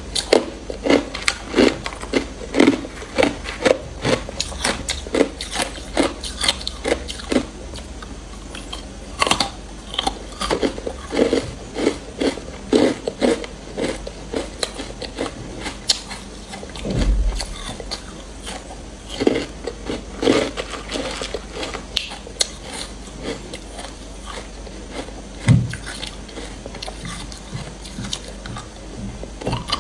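Hard clear ice being bitten and chewed close to the microphone: an irregular run of sharp crunches, one or two a second.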